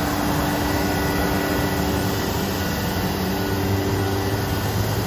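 Becker VTLF 250 dry-running rotary vane vacuum pump running steadily under load, a constant machine noise with a few held tones. It is pulling almost 23 inches of mercury with two vacuum-table zones open.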